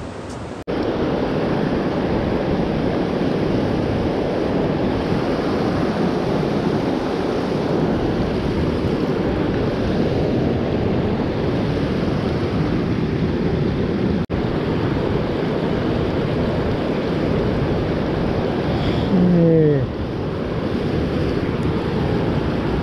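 Steady rushing noise of a fast river's water, mixed with wind on the microphone. It cuts out for an instant twice, and a short falling tone is heard about 19 seconds in.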